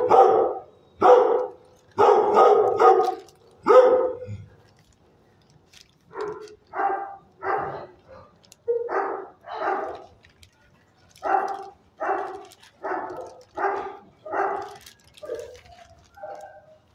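Dog barking: a burst of about five loud barks in the first four seconds, then after a short pause a steady run of quieter barks, about one and a half a second, that thin out near the end.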